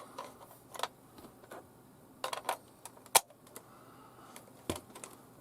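AA batteries being fitted into the plastic battery compartment of a Grundig Yacht Boy 500 radio: a series of irregular clicks and light clatters, the sharpest a little after three seconds in.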